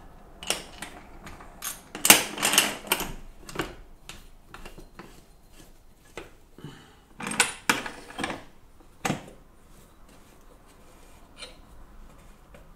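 Clattering knocks and rattles of hard objects handled at a ceramics kiln. They come in a dense cluster about two seconds in and another around seven to eight seconds, with a single sharp knock about nine seconds in.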